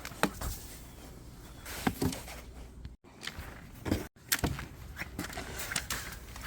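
Irregular scrapes and knocks of snow being shoveled. The sound cuts out completely twice for an instant, about halfway through.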